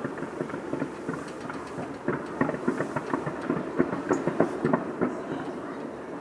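Fireworks going off: a dense, irregular run of bangs and crackling pops. It is thickest and loudest from about two to five seconds in, then thins out.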